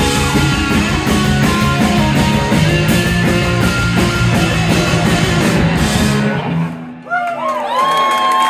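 Live rock band with electric guitars and drum kit playing loud and dense; about six and a half seconds in the playing stops, leaving a low held note with sliding, wavering high tones over it.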